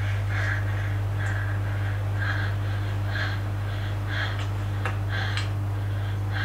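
Heavy, loud breathing, a puff about once a second, over a steady low hum.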